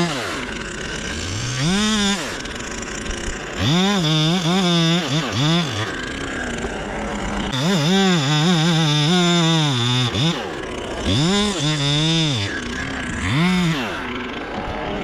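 Chainsaw engine revved up and down again and again, the pitch climbing, holding briefly and dropping back, with a longer spell at full throttle about eight seconds in.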